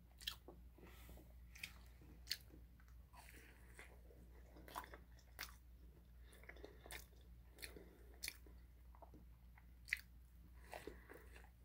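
Faint chewing of a grilled spaghetti sandwich, with scattered soft mouth clicks and smacks, and a slightly louder one about ten seconds in as she bites again.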